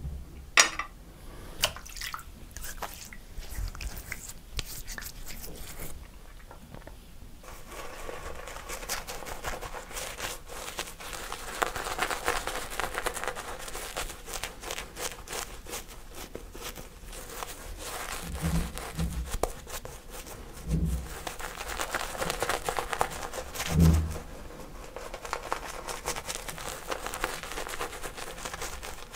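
Shaving brush working lather over a stubbled face: a continuous wet crackling and squishing. It is sparse with a few clicks at first and denser after several seconds, and a few dull low thumps fall in the second half.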